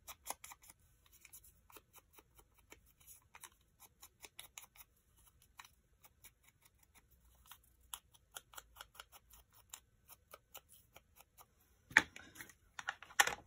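Foam ink blending tool dabbed and rubbed over a small paper label, a long run of quick, scratchy strokes. About twelve seconds in, the tool is set down with a couple of sharp knocks.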